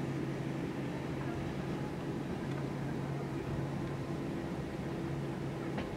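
Steady airliner cabin hum with the engines at idle before takeoff, holding two steady low tones, with a single click near the end.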